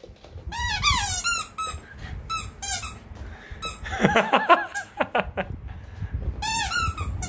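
Squeaky rubber toy ball squeaking over and over in quick clusters as a bichon frise bites and pushes it, over low scuffling of paws and feet on a blanket.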